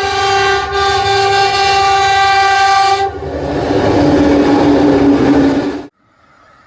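Train horn sounding a steady blast for about three seconds over the low rumble of the train. It gives way to a noisier rush with a lower steady tone, which cuts off abruptly near the end.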